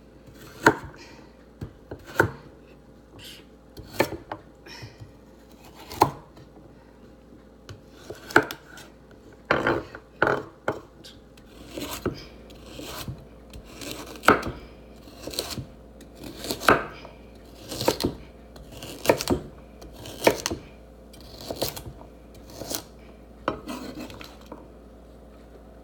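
Kitchen knife chopping carrots on a wooden cutting board: sharp, irregular knocks of the blade through the carrot onto the board, about one or two a second, bunching closer together around the middle.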